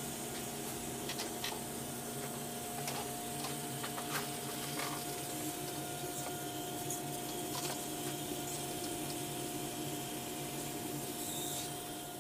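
Small electric gear motors of a DragonTail robot driving across carpet, a steady whir with a constant mid-pitched whine and a few faint clicks.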